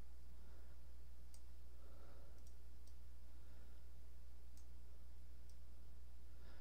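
About five faint, sharp computer mouse clicks spread over several seconds, made while painting over a graph with a pen tool, against a steady low hum.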